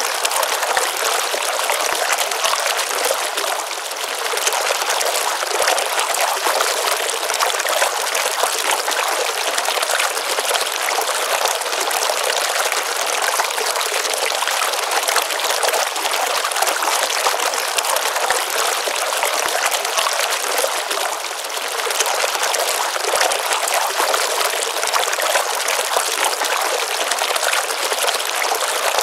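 A small stream pouring steadily into a pond, an unbroken splashing rush that dips slightly twice.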